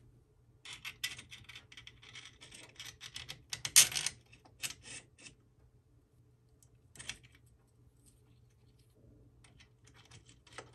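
Small metal bolts, spacers and a roller wheel handled and clicked against a metal bracket on a 3D printer frame. There is a quick patter of light clicks and scrapes for the first few seconds, with the loudest click about four seconds in, then a single click about seven seconds in and a few faint ones near the end.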